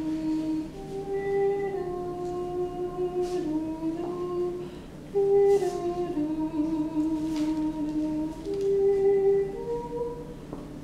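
A person humming a slow, wordless tune, holding each note for about a second before stepping up or down to the next.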